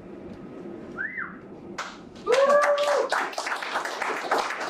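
Audience applause with a short whistle about a second in, then clapping breaking out about two seconds in with a whooping cheer, carrying on to the end.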